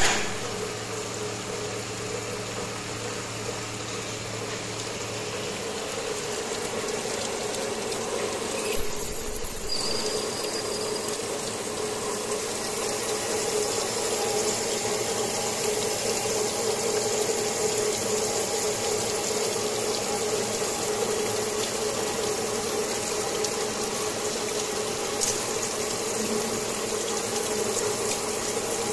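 Traub automatic lathe running, cutting an SS 304 stainless steel bush under a flood of coolant: a steady machine hum with splashing liquid. About nine seconds in, a loud shrill burst lasts about a second.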